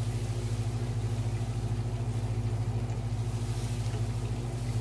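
A motor running steadily with a low hum and a quick, even pulse.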